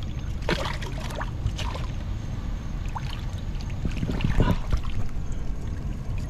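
Water splashing and sloshing as a large snook is held by the lip in the shallows and lifted out, with scattered short splashes and knocks over a steady low rumble.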